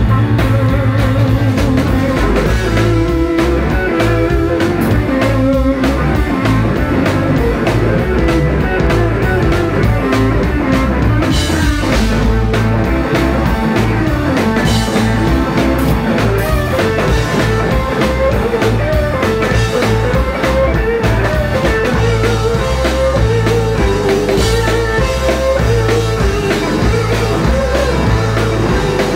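Live blues-rock band playing: two electric guitars trading a wavering lead line over electric bass and a drum kit keeping a steady beat.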